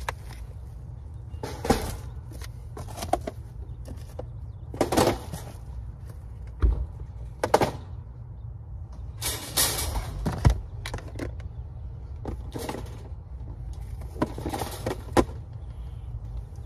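Groceries being loaded into a car's cargo area: plastic bags rustling in a dozen short, irregular bursts, with a few dull thuds as items are set down, over a steady low outdoor rumble.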